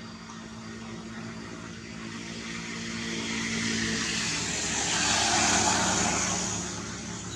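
A passing motor: a steady engine hum under a rush of noise that builds, peaks about five and a half seconds in, then fades.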